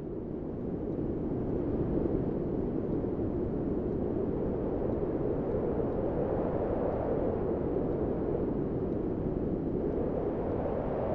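Strong wind blowing as a steady, deep rushing noise, swelling a little about two seconds in and again near the end.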